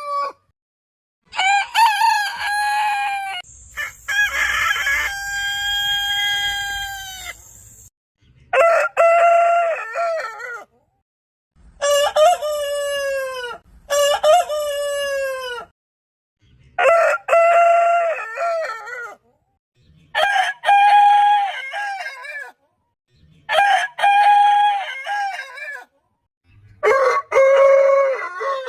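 Rooster crowing, about nine separate cock-a-doodle-doo calls of two to four seconds each. They are spliced one after another with abrupt cuts to silence between them.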